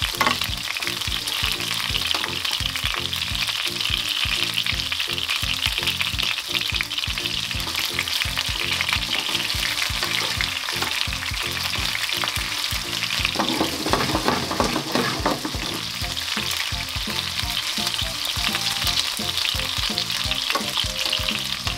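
Chicken thigh pieces sizzling and crackling steadily in a frying pan of hot olive oil, with tongs moving the pieces now and then. Water coming out of the chicken makes the oil spit.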